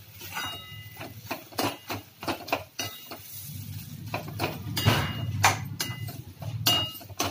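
A metal ladle scraping and knocking against a metal kadhai as fried khichdi is stirred and turned. The clinks come irregularly, roughly two a second, some ringing briefly, over a low hum.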